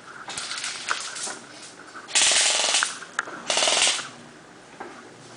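Paintball marker firing in two rapid bursts, the first starting about two seconds in and the second a moment later. A few single pops come before them.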